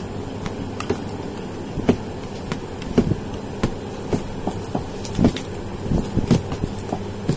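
A toddler's shoe kicked against a hard floor: irregular thumps and taps, about one or two a second, over a steady low background hum.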